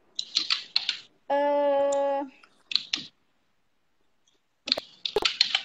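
A woman's voice over a video call breaking up on a poor internet connection: clipped, clicky scraps of speech, a flat buzzing tone held for about a second where the audio stalls, and a dropout to silence partway through.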